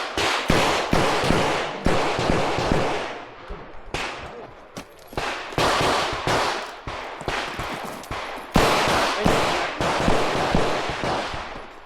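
Revolver shots fired in quick strings, each with a trailing echo. A short lull comes about four seconds in, then the firing picks up again.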